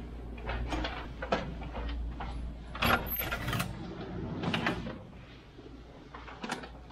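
Door and handling noises: a series of clicks and knocks with rustling, loudest about three seconds in, over a steady low hum.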